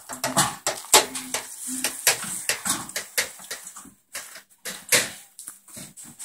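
Knocks and clatter of folding tables with plastic tops and metal legs being handled in a pickup truck's bed: a quick run of sharp knocks, thinning out in the second half, with louder bangs about a second in and about five seconds in.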